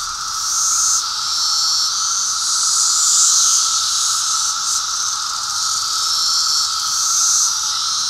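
Chorus of Brood X periodical cicadas: a steady, loud drone with a hissing layer above it that swells and eases every second or two.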